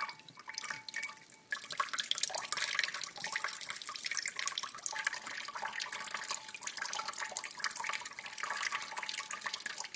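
Kitchen faucet running in a thin stream, the water splattering on a cat's head and into the sink. It is faint for the first second and a half, then a steady irregular splashing.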